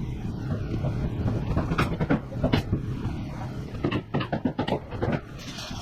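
Carpentry banging on wood framing: irregular sharp knocks, with a quick run of them about four seconds in, over a steady low rumble.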